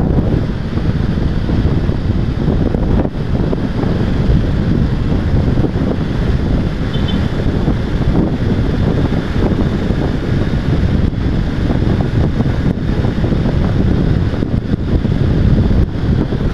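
Steady, loud wind rushing over a GoPro action camera's microphone while riding a Honda CB500X motorcycle at speed. The engine is buried under the wind noise.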